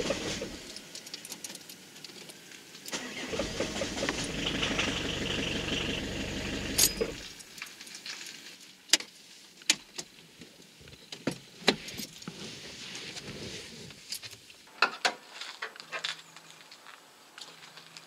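Diesel car engine starting about three seconds in, running for about four seconds, then cutting out abruptly: it stalls, the symptom of an air leak in the diesel fuel circuit upstream of the injection pump. Scattered sharp clicks and knocks follow.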